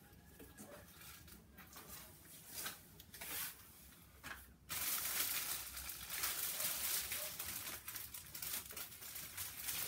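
Plastic packaging crinkling and rustling as items are handled and pulled out of a cardboard box: scattered light rustles at first, then a louder, continuous crinkling from about five seconds in.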